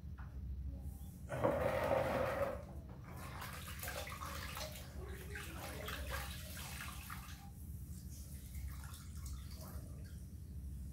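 A cloth being rinsed in a small bowl of water and wrung out, with splashing and trickling. The loudest splash comes about a second and a half in and lasts about a second, followed by several seconds of irregular sloshing and dripping that gradually fade, over a low steady hum.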